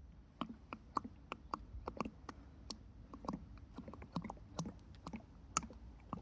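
Engine oil glugging out of a bottle into the motorcycle's oil filler: a run of short, irregular gurgling pops, about three a second, over a faint low hum.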